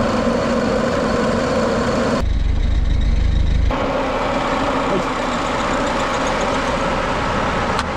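Freshly overhauled car engine idling steadily just after start-up, with a stretch of about a second and a half where only a deep low rumble is heard.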